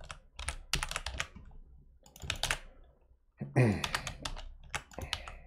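Typing on a computer keyboard: irregular key clicks. About three and a half seconds in there is a short voice sound that falls in pitch.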